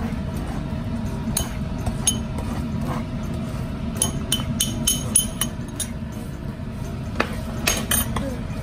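A metal spoon clinking and scraping against a ceramic bowl and a non-stick frying pan as omelette strips are scraped into the pan, with a quick run of sharp clinks about halfway through. A steady low hum runs underneath.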